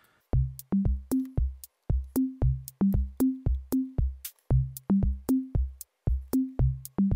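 Electronic background music: a drum-machine beat with short, low bass notes stepping upward in a figure that repeats about every two seconds, starting a moment in.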